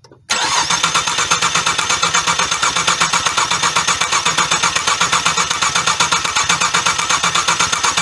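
Cadillac CTS V6 engine cranking on the starter motor without catching, its fuel pump fuse pulled so no fuel is delivered. It starts a moment in, with a fast, even chugging and a steady starter whine.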